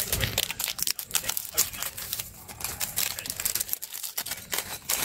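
Plastic instant-noodle packaging and seasoning sachets crinkling and tearing, a dense run of quick crackles, as the sachets are opened and emptied.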